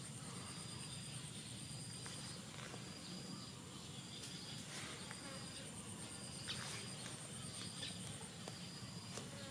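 Insects chirping: a high chirp repeating about once a second over a steady, higher-pitched insect buzz, with a low steady hum beneath and a few faint clicks.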